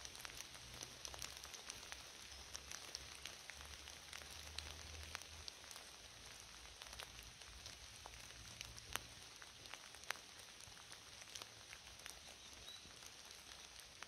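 Faint steady rain: a soft hiss with many single drops ticking sharply and irregularly.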